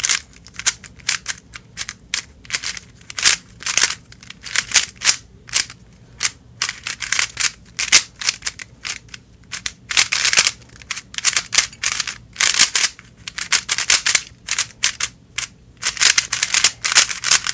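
A new MoYu AoLong V1 3x3 speed cube being turned rapidly through a solve: quick runs of sharp clicking, scratchy layer turns with short pauses between them. The plastic pieces are still on their dry stock lubricant, which gives the turns their scratchy sound.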